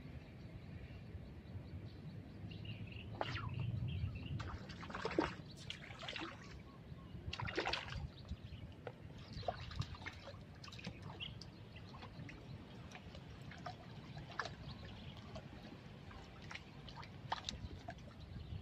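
Outdoor canal-side ambience: faint water trickling and sloshing under a low steady rumble, with scattered small clicks and a few quick falling chirps that may be birds.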